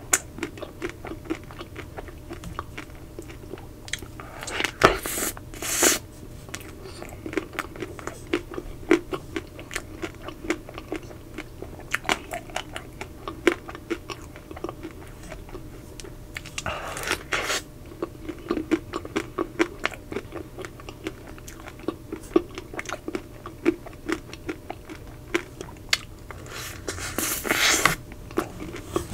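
Close-miked eating of a chocolate-coated Magnum ice cream bar: a steady run of small crunches and crackles as the chocolate shell is chewed, with louder bites about five seconds in, around seventeen seconds in and near the end.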